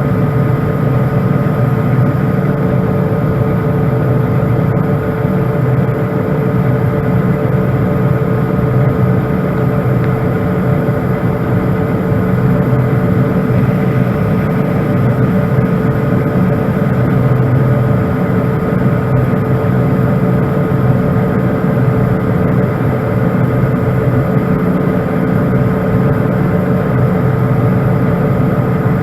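John Deere 9500 combine running steadily while its unloading auger empties the grain tank, with a strong low engine hum and a few steady whines from the auger and drives.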